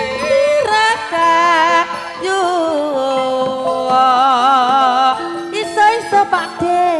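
Javanese traditional song: a sinden sings a long, wavering melismatic line with heavy vibrato over sustained instrumental accompaniment.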